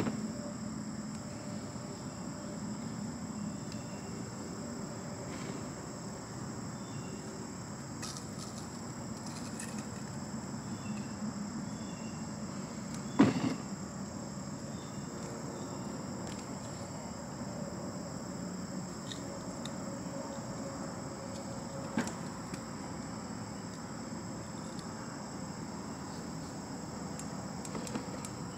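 Steady chirring of crickets or other night insects over a low hum of distant traffic, broken by a few wooden knocks as split firewood logs are set onto a fire ring. The loudest knock comes about halfway through.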